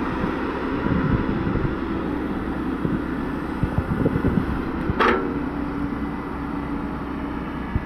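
Excavator engine running steadily, with irregular knocks and clanks and a brief sharp noise about five seconds in.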